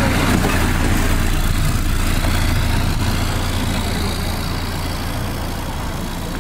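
A World War II jeep's engine running steadily as the jeep drives off, its sound slowly fading.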